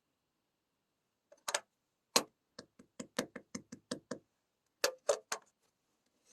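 A heart-shaped piece of hardened clay being struck and broken: sharp knocks and cracks, first a few single hits, then a quick run of about nine, then three more near the end.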